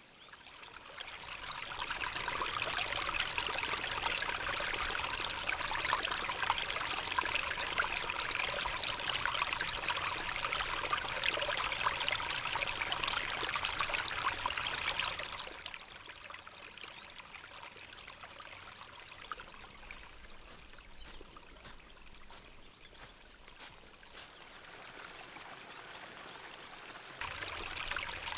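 Small woodland stream running over stones and leaf litter. The flow is loud at first, drops to a quieter running about halfway through, and comes up louder again near the end.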